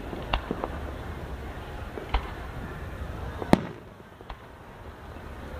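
Aerial fireworks going off: a string of sharp bangs, several in the first two seconds and the loudest about three and a half seconds in, over a low steady rumble.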